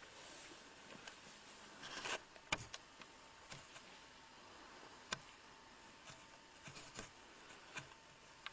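Faint hiss with a thin steady hum, broken by a handful of short, sharp clicks and knocks spread unevenly through it; the loudest comes about two and a half seconds in.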